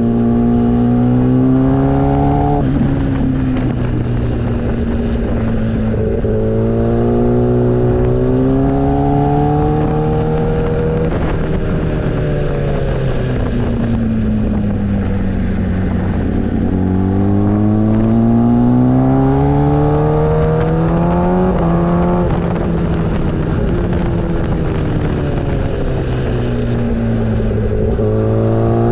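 Motorcycle engine running under load, its pitch climbing and falling several times as the rider accelerates and eases off.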